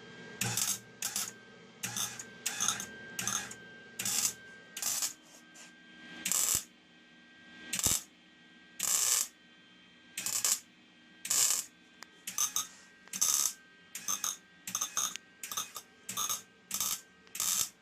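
MIG welder arc crackling in a quick series of short bursts, well over a dozen brief tack welds or stitch welds on a steel mini bike frame, with a faint steady hum underneath.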